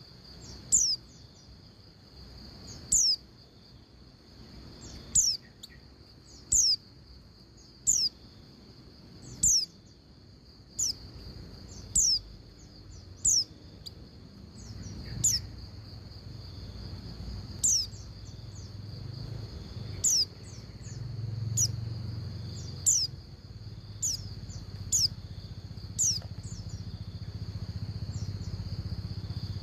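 Female pleci (white-eye) calling: short, high chirps that slide quickly downward, each followed by a few softer notes, repeated about every one to two seconds. This is the female's call that keepers use to get male pleci to start singing.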